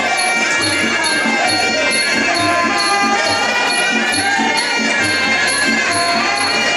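Muay Thai ring music (sarama): a reedy pi java oboe playing a long, wavering melody over a steady beat of hand drums and small ching cymbals.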